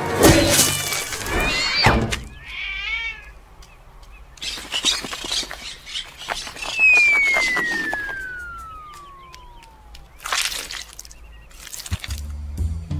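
A string of comedy sound effects: clattering knocks at the start, then a single whistle falling steadily in pitch for about three seconds, ended by a short burst of noise.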